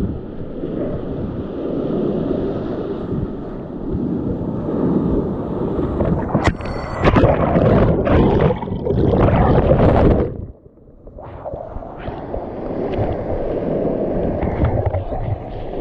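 Whitewater rapid rushing and churning around a kayak, heard close up from the paddler's camera. A sharp knock comes about six and a half seconds in, the churning is loudest from there until about ten seconds in, and the sound drops out for about a second before the rush resumes.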